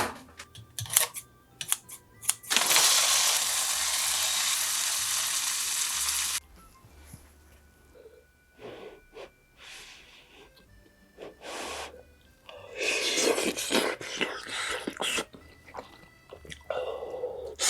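Close-miked eating and table sounds: light clicks of utensils or dishes, a steady hiss lasting about four seconds, then a stretch of crunchy, moist noise about two-thirds of the way through.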